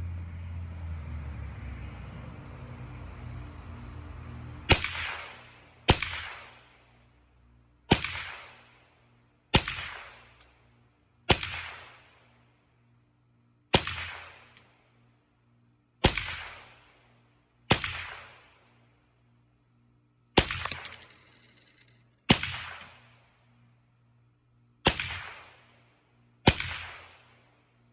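.22 LR rifle fired twelve times at a slow, steady pace, one aimed shot every two seconds or so, each sharp crack trailing off in a short echo. A low steady rumble fills the first four seconds before the shooting starts.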